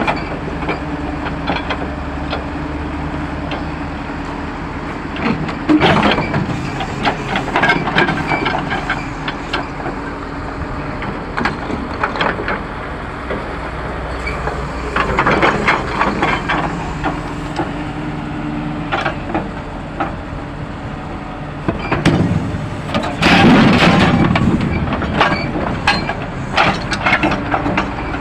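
Pneumatic jackhammer breaking concrete in several bursts of rapid hammering, over the steady running of an engine, likely its compressor.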